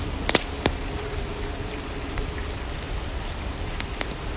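Steady rain falling, with a few sharp drip taps: two close together near the start and one near the end.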